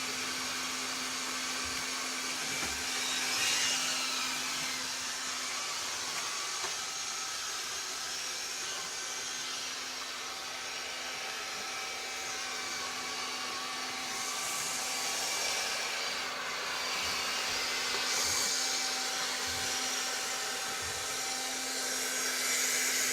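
Robot vacuum cleaner running: a steady motor hum with a hiss that swells louder a few times.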